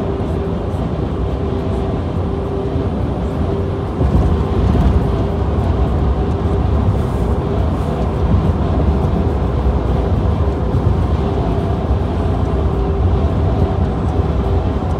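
Steady low road rumble of a moving vehicle, with a faint constant hum over it; it gets louder about four seconds in.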